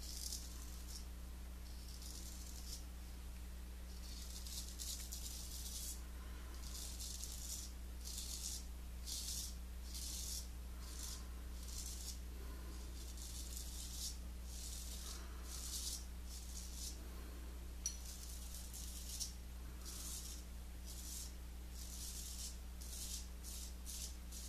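Gold Monkey 777 safety razor scraping through lathered stubble in a run of short strokes, each a brief dry rasp. Two light clicks come about three-quarters of the way through.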